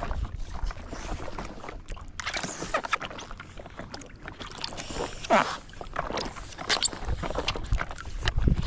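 Water splashing and knocking around a small boat, with a low rumble at the start and again near the end, and a brief falling squeak about five seconds in.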